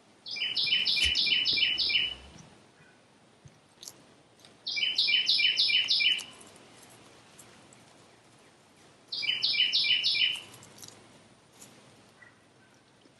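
A wild songbird singing three loud phrases a few seconds apart, each a quick run of about six repeated two-part notes.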